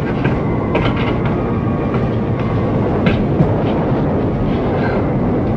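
A loud, steady rumble with a few scattered sharp clicks.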